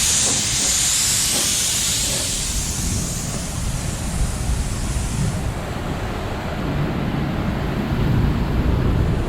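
A loud, steady hiss from a pressurized jet being let loose. Its high edge drops away about five and a half seconds in, leaving a duller rushing noise.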